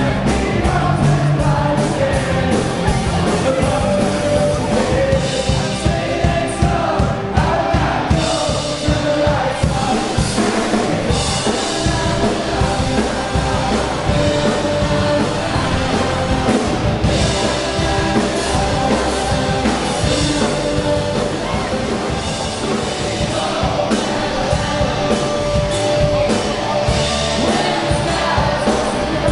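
Live rock cover band playing a song with a lead singer, drum kit and guitars, loud and steady, heard from within the dancing crowd.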